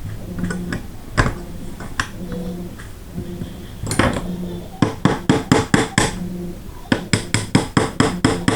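Hammer tapping a steel punch to drive a pin into a 3D-printed AR-9 lower receiver, to seat the magazine catch. A few single taps come first, then two runs of rapid light taps at about five a second.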